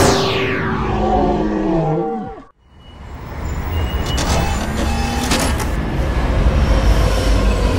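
Added animation sound effects: a falling whistle-like glide and wavering pitched wails that cut off abruptly about two and a half seconds in. After a short silence, a low steady vehicle-like rumble builds up and keeps running.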